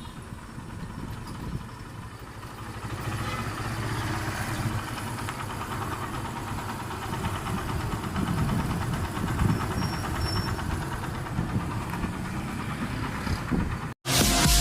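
Kawasaki Barako II motorcycle's single-cylinder engine running through a muffler whose catalytic converter has been drilled out for a freer exhaust. The exhaust gets louder about three seconds in and holds steady. It cuts off abruptly near the end.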